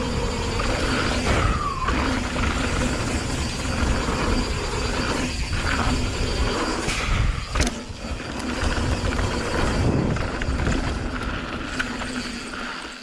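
Mountain bike riding down a dirt and gravel trail: rumbling tyre and drivetrain noise with wind rushing over the microphone. It eases off near the end as the bike slows.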